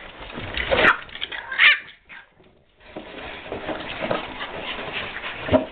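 French bulldog puppies whimpering and yipping as they play, with the plastic milk jug knocking and scraping on the wooden deck boards. The sound drops out briefly about two seconds in.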